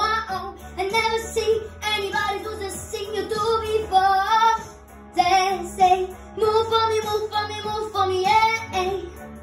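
A boy singing long, held vocal lines into a microphone over a pop backing track with a steady beat, his voice dipping briefly about halfway through.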